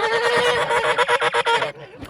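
A goat bleating: one long, loud, quavering call that stops shortly before the end.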